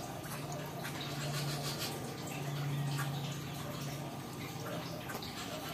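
Steady running, trickling water with scattered drips, under a low hum that swells for a couple of seconds in the middle and then settles back.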